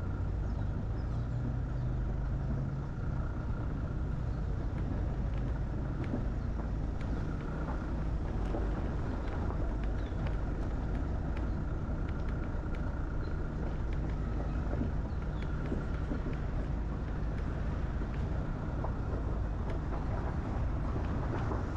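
A vehicle driving along a road: a steady low rumble of engine and tyre noise that holds an even level throughout.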